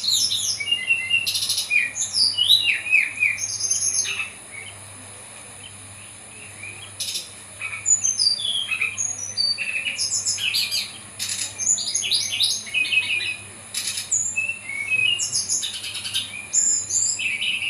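Brown-chested jungle flycatcher singing, quick runs of short whistled notes and sweeping phrases, with a pause of about three seconds shortly after the start before the song resumes. A steady high-pitched tone runs underneath.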